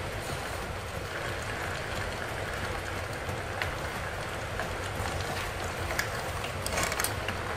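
Boiled chicken halves frying in hot oil in a wok: a steady low sizzle with scattered crackles, and a short burst of sharp clicks near the end. The skin was drained dry, so the oil sizzles without much spattering.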